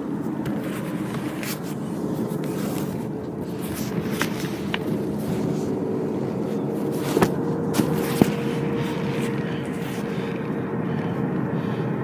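Steady hum of a car's cabin: engine and road noise, with a few sharp clicks and knocks about seven to eight seconds in.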